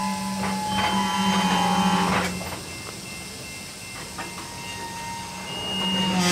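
Freight train of tank cars creeping along, with steel wheels and brakes squealing in several thin tones over a steady low hum. The sound swells for the first couple of seconds, eases, then builds again near the end.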